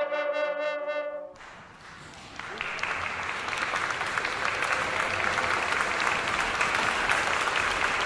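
An ensemble of trompes de chasse (French hunting horns) holds its final chord, which stops about a second in. Applause follows from about two seconds in, steady until it cuts off at the end.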